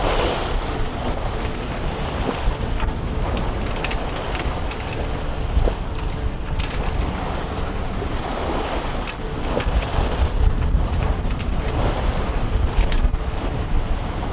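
Wind buffeting the microphone on a sailboat under sail in open ocean, with waves rushing and splashing past the hull in irregular surges every few seconds.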